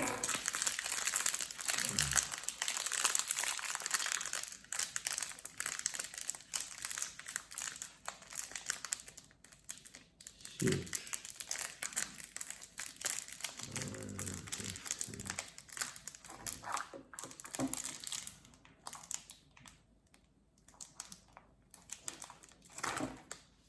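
Plastic packaging bag crinkling as a small toy is unwrapped and handled, dense for the first several seconds, then in shorter, scattered crinkles.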